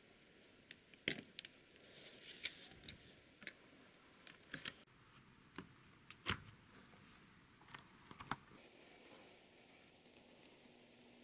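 Scattered small clicks and light taps with some rustling, from hands handling the parts of an HP Envy laptop during a battery replacement; the taps stop about eight seconds in.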